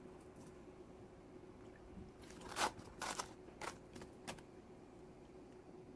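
Quiet room tone with a faint steady hum, and a handful of soft clicks and taps from about two seconds in, the loudest about halfway through.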